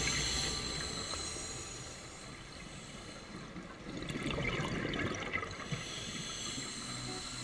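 Underwater bubbling and gurgling of a scuba diver's exhaled breath through the regulator, louder again from about four seconds in. Background music fades out over the first couple of seconds.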